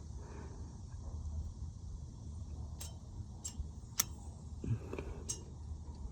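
A few faint, sharp ticks spaced irregularly over a low steady hum, from a powered jumper wire being touched to the starter connector of a C7 Corvette. The starter gives no click and does not crank, the sign of a bad starter.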